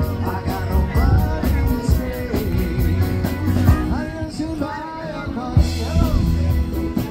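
Rock-and-roll song with a singer over a steady drum beat and heavy bass.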